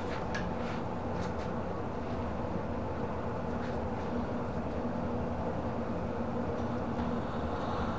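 Steady mechanical drone with a constant low hum, a running machine in the room, with a few faint light clicks in the first few seconds.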